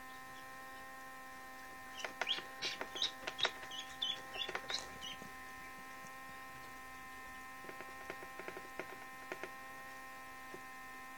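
Newly hatched Indian Runner × Khaki Campbell duckling peeping: a quick run of short, high peeps a couple of seconds in, then a few fainter ticks later on, over a steady electrical hum.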